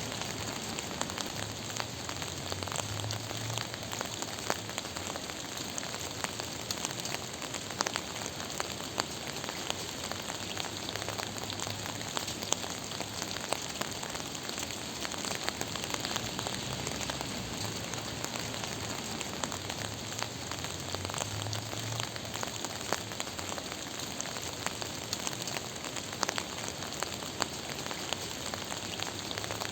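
Steady gentle rain falling, an even hiss with many small drops pattering and ticking on a surface.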